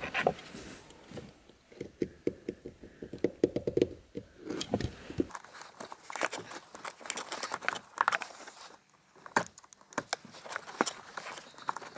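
Utility knife and gloved hands cutting and peeling the outer sheathing off a car wiring harness: a fast run of small clicks in the first few seconds, then scattered scratches and sharp ticks.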